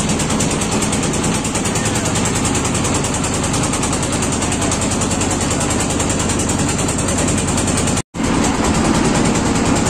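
Riverboat's engine running steadily under way, with a constant rushing noise over it. The sound cuts out for an instant about eight seconds in.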